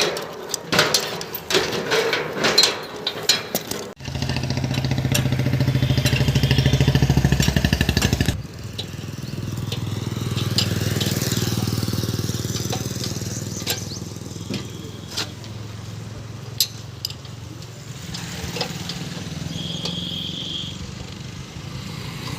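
A few seconds of sharp clicks and knocks, then a motor vehicle engine running steadily. The engine sound changes abruptly about four seconds in and again about eight seconds in, becoming a quieter steady rumble.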